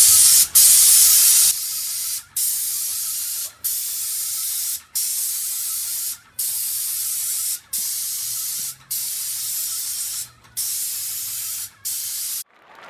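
Paint spray gun spraying red paint onto wood siding: a steady hiss of atomised paint, broken by short gaps about every second and a quarter as the trigger is let go between passes. It is louder for the first second and a half, then quieter, and stops shortly before the end.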